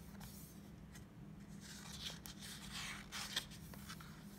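Paper rustling and sliding as the pages of a picture book are handled and turned by hand, loudest in the middle seconds, with one sharp tick near the end.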